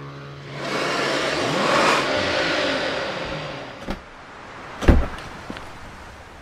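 A car engine revving as it drives past, swelling to a peak about two seconds in and fading away. A single heavy thump comes just before five seconds.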